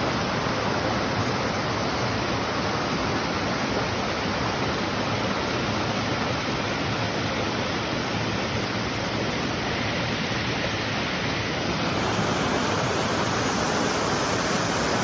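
Waterfall pouring, a steady dense rush of falling water that grows slightly louder about twelve seconds in.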